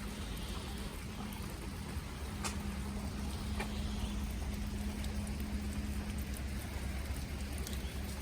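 Street ambience: a steady low rumble with a faint engine hum from a vehicle in the middle part, and a couple of faint sharp ticks.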